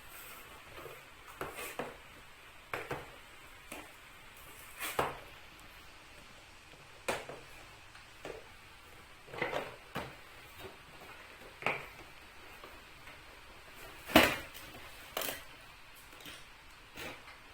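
Irregular sharp clicks, knocks and scrapes of hard plastic toy packaging being worked open by hand with a tool. About a dozen separate sounds, the loudest about fourteen seconds in.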